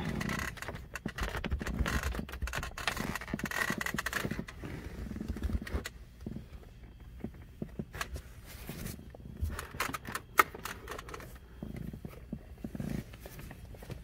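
Plastic centre-console trim of a 2001 BMW Z3 being worked loose by hand, rattling and clicking as it is pulled up and pushed backward. The rattling is dense for the first few seconds, then thins to scattered clicks and knocks, with one sharp click later on.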